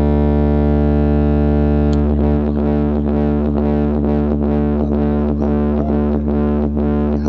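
Distorted electronic music played loud through a DJ sound system during a speaker check. A held, buzzing chord sits over heavy bass, and about two seconds in a fast repeating riff of notes begins, roughly four a second, over the same bass.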